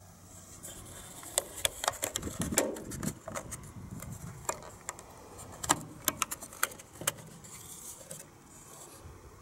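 Sharp plastic clicks and light rattling as a toy pistol's slide and recoil spring assembly is handled and fitted by hand, with a dozen or so ticks between about one and a half and seven seconds in.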